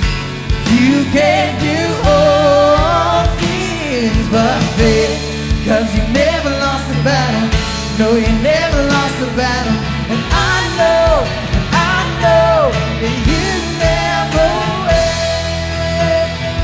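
Live worship band playing a rock-style song: electric guitars, bass, keyboard and drums under lead vocals, the voice holding one long note near the end.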